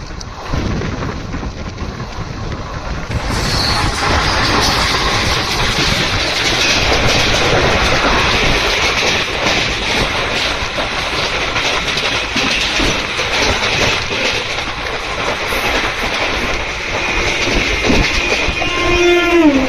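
Running noise of an Indian Railways express coach at about 100–110 km/h, heard through its open door: wheels clattering over the rail joints with rushing air, louder from about three seconds in. Near the end a horn sounds and drops in pitch as an oncoming local train passes.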